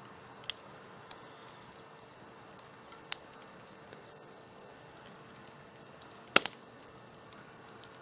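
Campfire crackling: scattered small irregular pops and snaps over a soft steady hiss, with one sharp loud pop about six seconds in.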